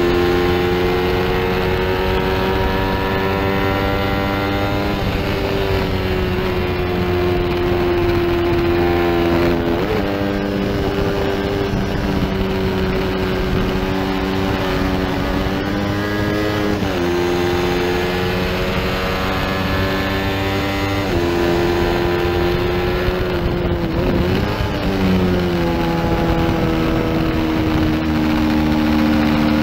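Small-displacement sport motorcycle engine at race pace, heard onboard. Its pitch drifts, then jumps or drops sharply several times as the gears and throttle change through corners, over rushing wind.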